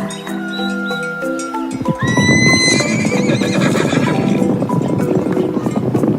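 A horse whinnying, with a clattering of hooves from about two seconds in, over background music.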